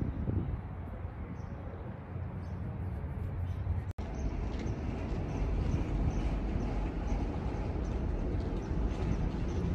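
Outdoor ambience: a steady low rumble with no clear single source, broken by a brief dropout about four seconds in.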